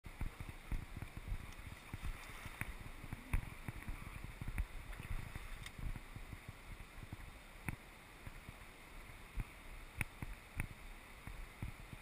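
River water running steadily, with frequent low thumps of wind on the microphone and a few sharp clicks.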